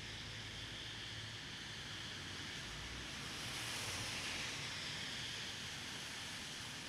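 Steady hiss of rain and traffic on a wet city street. A passing vehicle's tyres on the wet road swell the hiss about halfway through, then it fades back.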